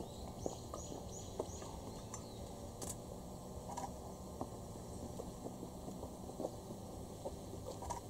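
Low, noisy rumble of the approaching double-headed steam locomotives, C11 325 and C12 66, working. A short run of four high bird chirps sounds about half a second to two seconds in, and a few sharp clicks are scattered through.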